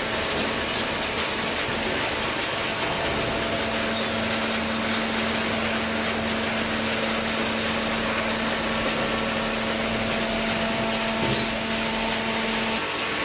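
Waste paper baler machine running with a steady mechanical noise. A steady hum comes in about three seconds in and cuts off shortly before the end.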